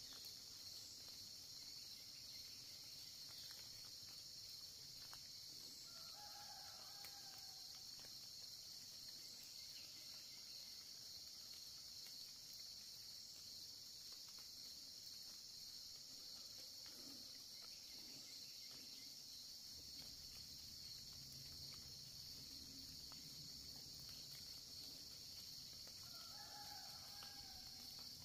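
Faint, steady, high-pitched chorus of crickets and other insects in late-summer woodland. A short bird call sounds twice, about twenty seconds apart, and a low rumble comes in during the last third.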